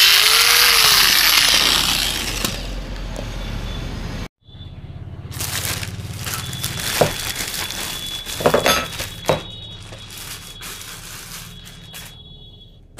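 Electric drill with a socket spinning the tight brake cam nut loose, running hard for about two seconds and then more lightly until it stops about four seconds in. After that, plastic parts bags crinkle and rustle as they are handled, with a few clicks.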